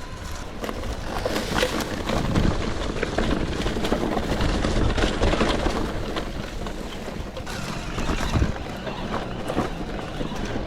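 Electric mountain bike riding over a rough dirt trail: a steady rush of tyre and wind noise on the microphone, with scattered clatter and knocks from the bike over rocks and roots.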